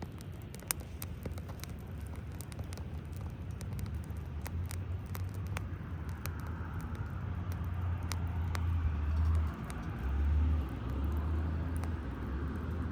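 Wood campfire crackling, with scattered sharp pops, over a low rumble of road traffic that swells in the second half.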